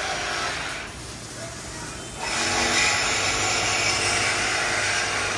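A power tool cutting through exhaust pipe, dropping off briefly and then cutting hard again from about two seconds in, with a thin high whine for about a second.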